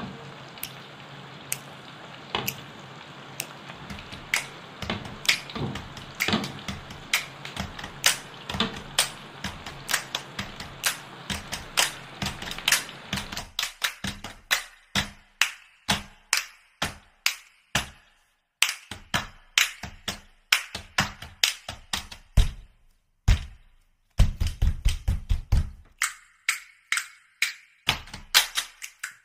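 Potato chips deep-frying in hot oil in a pan: a steady sizzle full of crackling pops. About halfway through the sizzle falls away, leaving separate sharp pops and quick bursts of crackling.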